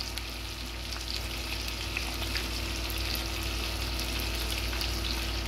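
Mahi mahi steaks frying in butter and olive oil in a stainless steel skillet: a steady sizzle with many small scattered crackles and pops.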